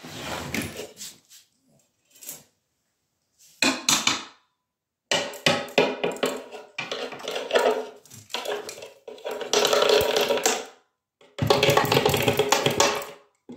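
Things being shifted and knocked about on a tiled floor: several loud bursts of scraping and clattering, each a second or two long, with short silences between them.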